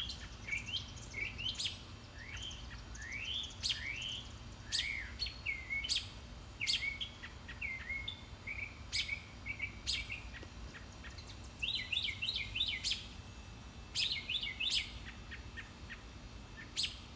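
A small songbird calling over and over: quick rising chirps and sharp chip notes, with fast rattling trills around the middle. These are plausibly the calls of the bird harassing a perched owl.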